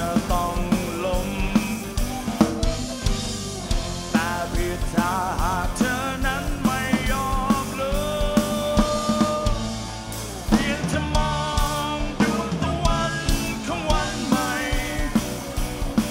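Live rock band: a male singer's voice over electric guitar and a drum kit, with one held sung note near the middle.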